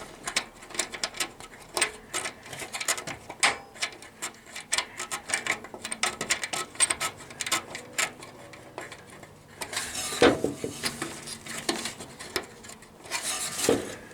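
Irregular small metallic clicks and clinks of a radiator mounting bolt being fiddled into place and threaded by hand, with a couple of longer scraping rustles about ten and thirteen seconds in.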